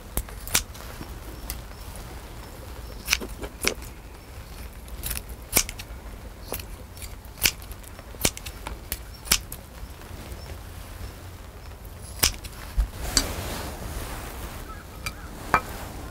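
Kitchen scissors snipping pieces of cooked octopus held in metal tongs: a series of about a dozen sharp metallic snips and clicks, spaced irregularly.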